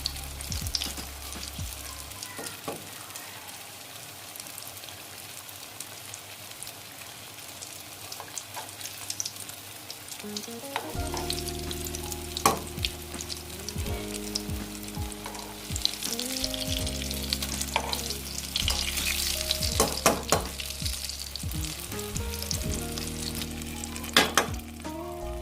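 Breadcrumb-coated chicken and potato drumsticks frying in oil in a kadai over low heat: a steady sizzle, with occasional sharp clicks of a utensil against the pan. Soft background music comes in about halfway.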